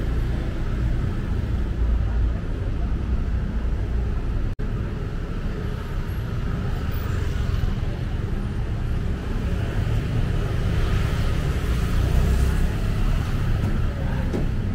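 Busy street traffic: motorbikes and cars running past in a steady rumble. The sound cuts out for an instant about four and a half seconds in.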